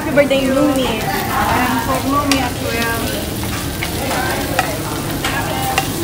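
Restaurant din: several people's voices talking over one another, with scattered clinks of dishes and cutlery over a steady hiss of background noise.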